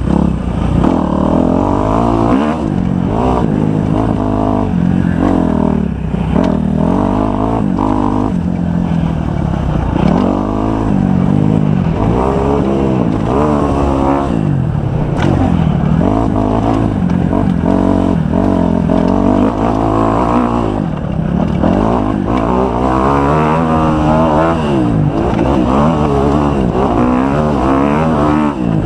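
Kawasaki 250 motocross bike engine under hard riding, its pitch climbing and dropping over and over as the throttle is opened and closed through the gears.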